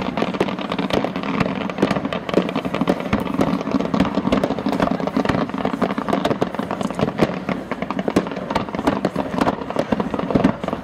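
A fireworks display firing: a dense, continuous run of sharp bangs and crackles as fans of comets are launched and small shells burst, several reports a second.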